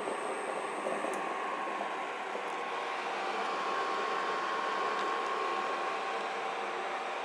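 Steady whirring fan noise with a faint high whine, from an induction cooker's cooling fan running while it heats.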